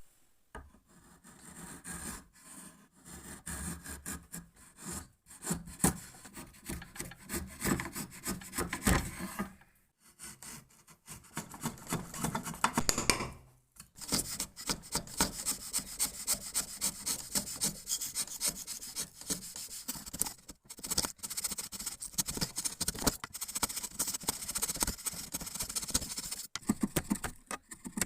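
A steel wood chisel cutting into wood, a rapid run of short scraping, shaving strokes with a couple of brief pauses partway through.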